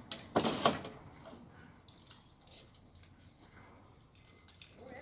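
A short burst of rattling, jangling clicks about half a second in, then faint background noise.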